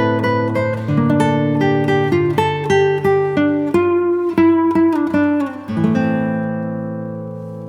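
Background music: an acoustic guitar playing a melody of plucked notes, with a chord left ringing and fading near the end.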